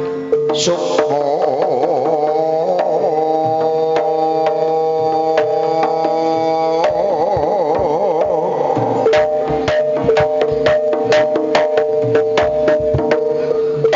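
Javanese jaranan gamelan music: held pitched tones under a wavering melodic line, with hand-drum strokes that come thick and fast from about nine seconds in.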